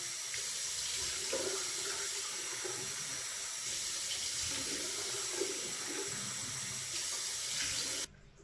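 Water running from a tap into a sink, a steady rush that cuts off suddenly near the end.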